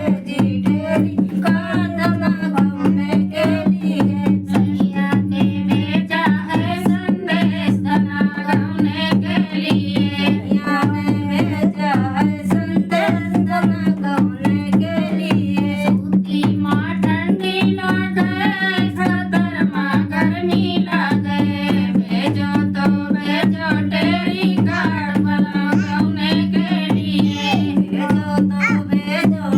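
Dehati folk song music: a hand-drum beat over a steady drone, with a wavering melody line above it.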